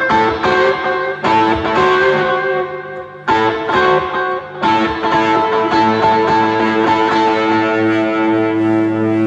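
Rock band playing live, an instrumental break led by distorted electric guitar chords through effects pedals. The playing drops briefly about three seconds in, then resumes, and a chord is held long near the end.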